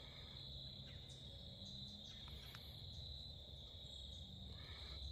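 Faint, steady insect chorus: one continuous high-pitched trill, crickets or similar, over a low background rumble.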